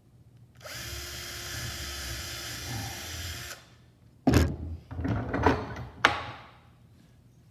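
Cordless drill running steadily for about three seconds as it bores a hole through a wooden block held in a vise. The drill then stops, and a loud knock and rattling follow as it is set down on a wooden workbench, with another sharp knock about two seconds later as the block is freed from the vise.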